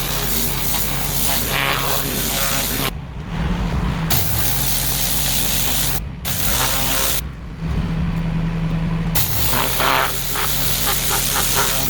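Pressure washer running: the high-pressure water jet hisses steadily over the machine's engine hum. The spray stops three times, briefly near the middle and for about two seconds later on, while the engine keeps running.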